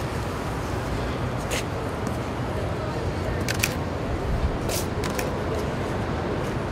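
Camera shutter firing a handful of times, single clicks and a quick pair, over a steady background hum.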